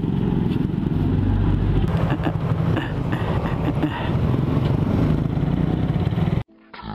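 Suzuki Raider 150 motorcycle's single-cylinder four-stroke engine running steadily as the bike is ridden slowly, heard from the rider's seat. It cuts off suddenly about six and a half seconds in.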